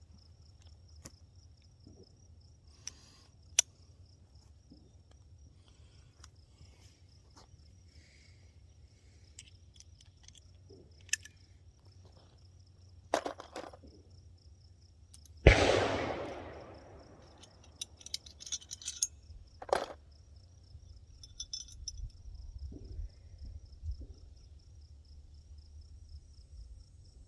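A single shot from a prototype pistol about halfway through, fired without its magazine to test extraction and ejection, followed by a long fading echo. Scattered metallic clicks of the gun being handled come before and after, over a steady insect trill.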